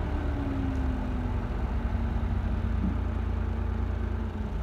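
Farm tractor's diesel engine running steadily at low revs, a low rumble with a faint hum slowly dropping in pitch.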